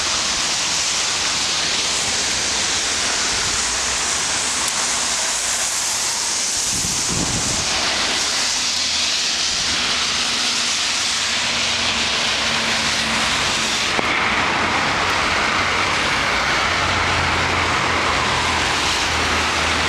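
Steady rushing noise of rain and traffic on a wet street, with a low engine hum joining in the second half.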